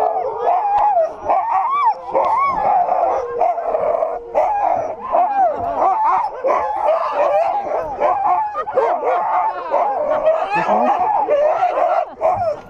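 A pack of sled dogs barking, yipping and howling all at once, many voices overlapping without a break: the excited din of a team being hooked up for a run.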